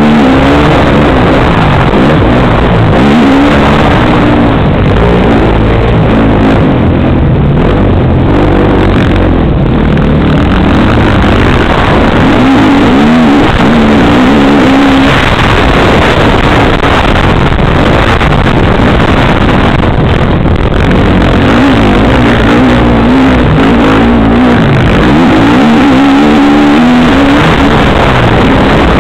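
Motocross dirt bike engine heard on board while riding a dirt track, very loud and close, revving up and falling back again and again as the rider works the throttle over the jumps.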